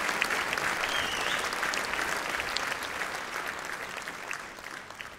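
Theatre audience applauding with many hands clapping, the applause dying away over the last couple of seconds.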